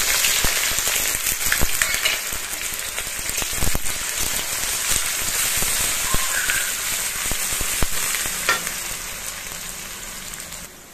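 Sliced onions sizzling and crackling in hot oil in a metal kadai, loud at first and dying down gradually. The spatula clinks and scrapes against the pan as it stirs them.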